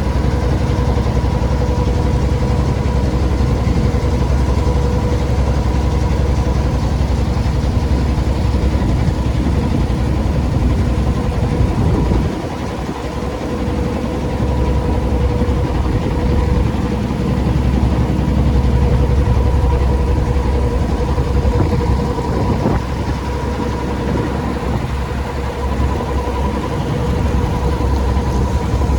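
An engine running steadily at constant speed, with a deep rumble under a steady hum. It eases off briefly about twelve seconds in, then picks up again.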